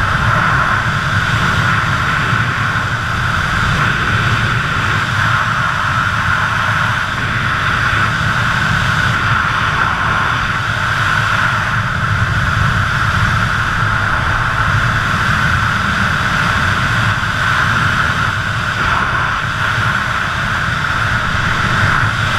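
Steady rush of wind over the camera's microphone during wingsuit flight: an even, loud hiss with a low rumble underneath.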